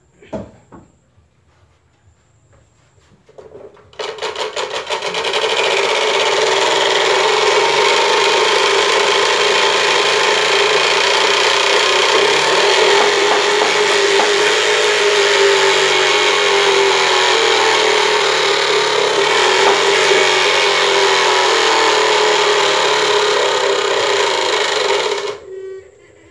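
Homemade bicycle 'motorcycle sound' exhaust, a PET bottle with a plastic flap struck by the spokes of the spinning rear wheel. About four seconds in, quick clicks speed up into a loud, continuous buzzing rattle like a small motor. It holds for about twenty seconds and stops abruptly near the end.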